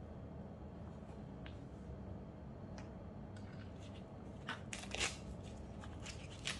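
Dry, papery crackling and rustling of red onion skin being peeled off by gloved hands, in a cluster of crisp crackles in the second half, loudest about five seconds in, with a few lighter rustles before it.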